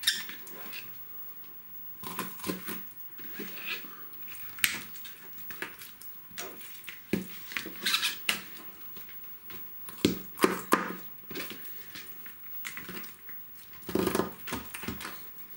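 Knife cutting up a raw chicken on a plastic cutting board: irregular sharp clicks and snaps as the blade works through joints and bone, with the wet handling of the meat and the blade knocking on the board, busiest near the end.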